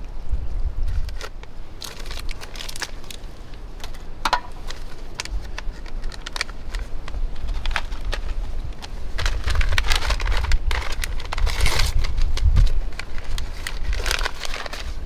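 Clicks and clinks of camp cooking gear being handled, then the crinkling rustle of a plastic food packet being handled in the second half. A low rumble of wind on the microphone runs underneath.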